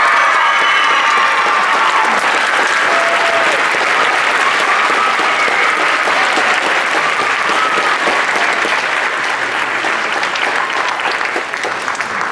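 Audience applauding steadily, dying down toward the end.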